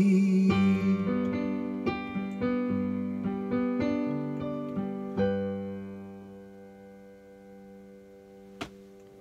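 Piano playing the closing bars of a song: a run of struck chords over bass notes, the last one about five seconds in, left ringing to fade out. A single sharp click near the end.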